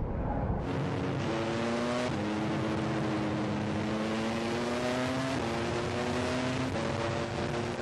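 Formula One car engine running at high revs, its pitch gliding and jumping several times as it changes speed, under a loud rushing noise that comes in abruptly under a second in.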